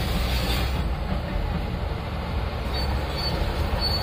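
Crawler bulldozer's diesel engine running steadily under load as it pushes a mound of earth and rubble, with a low rumble and mechanical clatter.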